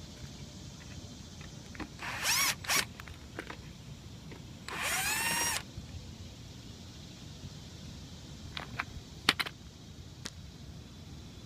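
Cordless drill-driver run in three short bursts, the last about a second long, its pitch rising and falling as it spins up and slows, taking out the screws of a lawn mower's engine cover. A few light clicks follow, the sharpest about nine seconds in.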